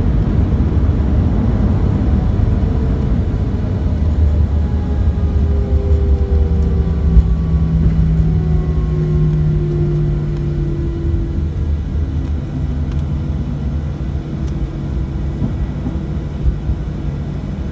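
Cabin noise of a Boeing 737-800 on its landing rollout: a loud low rumble from the wheels on the runway, with the CFM56 engines' tones sliding slowly downward as they spool down. The noise eases off as the jet slows.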